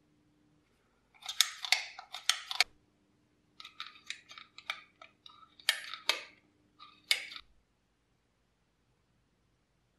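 Old aluminium injection syringe handled in a gloved hand: a quick run of sharp metallic clicks and rattles in two bursts, stopping a little after the middle.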